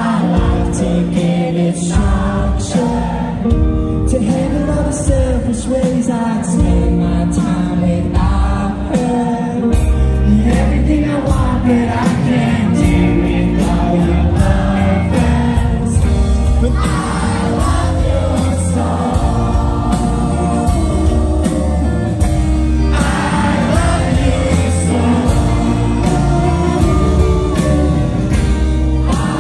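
Live band music: a male singer over electric guitars in a slow song, with bass and drums coming in strongly about ten seconds in.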